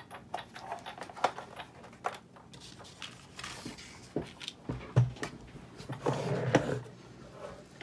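A Big Shot die-cutting machine being moved and set down on a tabletop: scattered knocks and clicks with short scraping slides, the sharpest knock about five seconds in.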